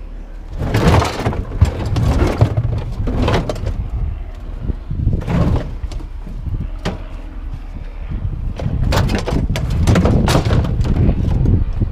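Scrap metal being dumped from a truck, with repeated clanks, clatters and crashes of metal pieces landing over the low rumble of a running engine. The crashes come in irregular groups, densest a few seconds in and again near the end.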